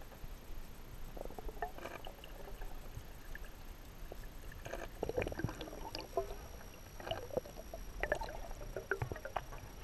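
Underwater recording of moving water, muffled, with many scattered small clicks and knocks that grow busier about halfway through.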